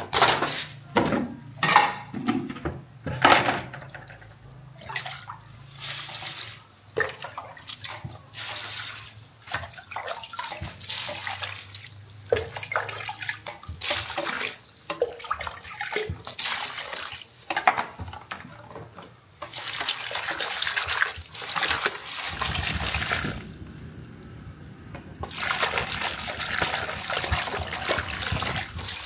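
Water splashing and pouring, with several sharp knocks in the first few seconds and a steadier pour in two stretches near the end.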